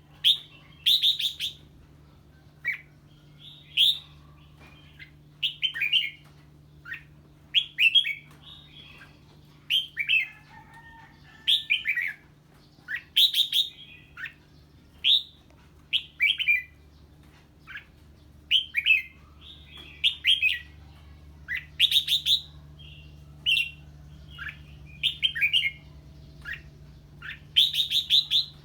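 Red-whiskered bulbul singing in short, loud bursts of falling notes, one every second or two: the agitated 'ché' song that it gives on hearing a strange bird.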